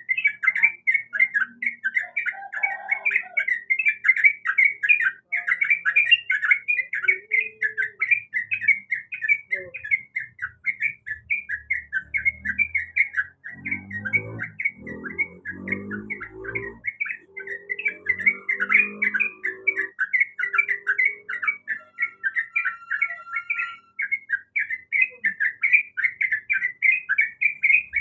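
Yellow-vented bulbul (trucukan) calling in a dense, unbroken stream of short chirps, several a second. It is a female's calling, the kind that draws a response from a male.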